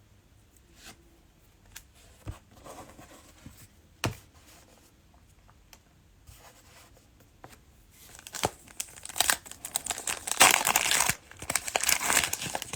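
Cellophane wrapper of a Mosaic basketball cello pack being torn open and crinkled, starting about eight seconds in, after a few light clicks and taps.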